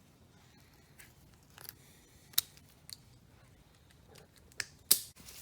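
Sharp metal clicks of pliers working small steel parts of a high-pressure waterjet swivel: a handful of scattered clicks, the loudest about two and a half and five seconds in.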